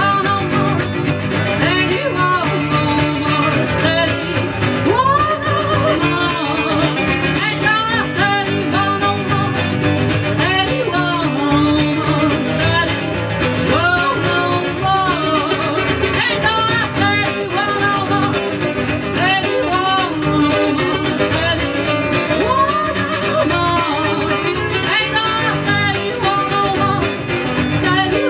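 A woman singing a slow melody with held notes, accompanied by two acoustic guitars, one of them a classical guitar.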